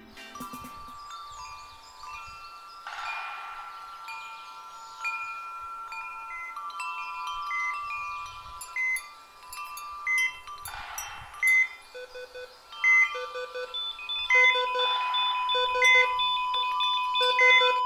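Chiming ambient music: bell-like tones ring and hold under a short, repeating high chime melody, with soft whooshes now and then. About two-thirds of the way through, a lower note joins in a pulsing rhythm.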